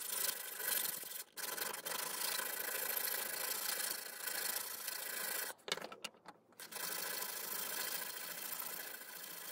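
Hand file scraping in repeated strokes across the steel of a billhook blade, sharpening its edge, with a pause of about a second a little past the middle.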